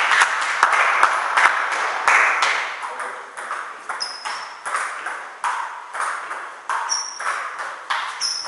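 Table tennis ball clicking back and forth between rackets and table in a rally, about two sharp clicks a second, some with a brief high ring. Voices murmur in the hall during the first couple of seconds.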